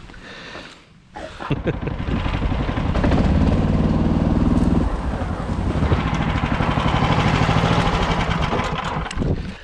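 An engine running loud and close, starting about a second and a half in, its pitch changing about halfway through.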